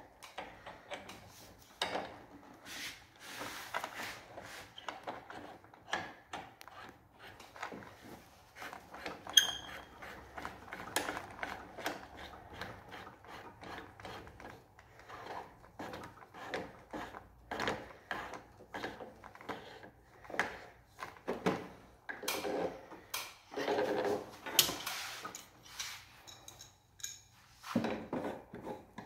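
Irregular rubbing, tapping and clicking as copper refrigerant pipes and their flare-nut fittings are handled and fitted by hand behind a split air conditioner's indoor unit, with a sharp metal clink about nine seconds in.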